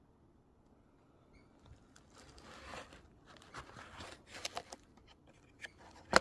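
Handling noise: rustling and scraping begins about two seconds in, mixed with several small clicks, and one sharp click comes near the end.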